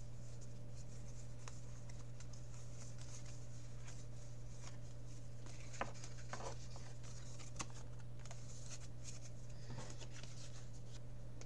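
Quiet room with a steady low electrical hum, a few faint clicks and light scraping as a Yu-Gi-Oh! trading card is handled on a desk, the card being picked up near the end.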